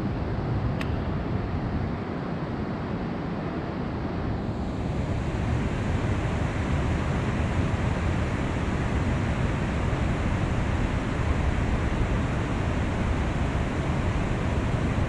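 Steady rush of fast river water running through rapids below a dam spillway, with wind buffeting the microphone.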